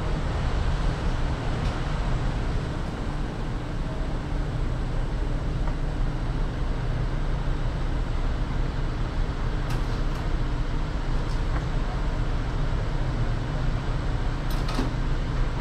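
Steady low rumble of a car idling, with a couple of faint clicks about ten seconds in and near the end.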